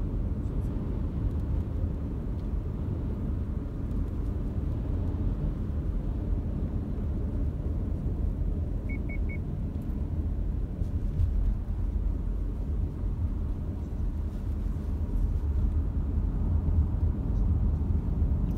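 A car's cabin heard while driving through city streets: a steady low rumble of road and engine noise. About nine seconds in come three quick, short beeps of the same pitch.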